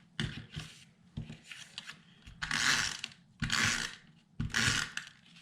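Scrapbook paper being cut: a few light clicks, then three rasping cutting strokes, each under a second long and about a second apart.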